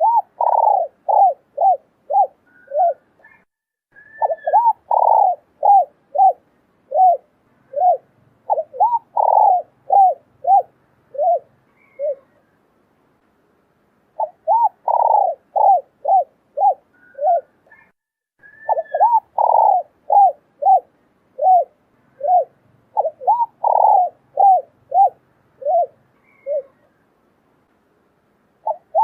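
Male and female spotted doves cooing. There are two long bouts of repeated low coos, each with a brief higher note a few seconds in, and a pause of about two seconds between the bouts. This is a male-and-female call recording of the kind played to lure wild doves.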